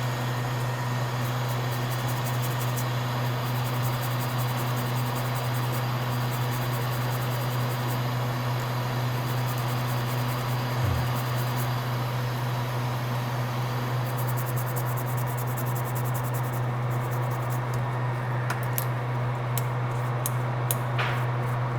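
Steady hum of a fan or air blower running to cool a freshly soldered circuit board, with faint light ticks in the second half.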